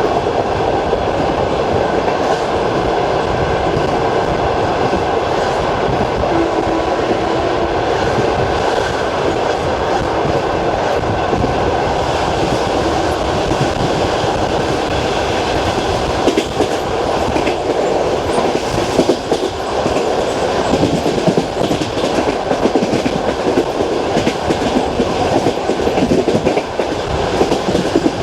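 Passenger train running on jointed track, heard aboard: a steady rolling rumble with the wheels clicking over the rail joints, the knocks standing out more clearly in the second half.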